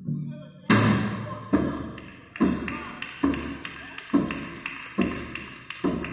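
A drum struck in a slow, steady beat, a little more than one beat a second, each beat ringing out; the beat starts about a second in.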